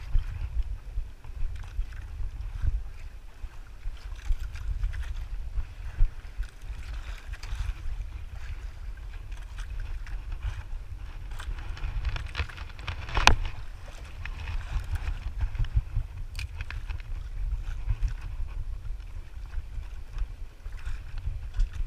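Wind buffeting the microphone in a steady low rumble, with water lapping against a small wooden outrigger boat's hull on a swell. A sharp knock sounds once about 13 seconds in.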